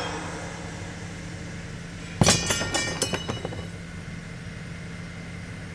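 A sudden crash about two seconds in, followed by a second or so of scattered clinking and tinkling pieces that ring briefly, over a steady low hum.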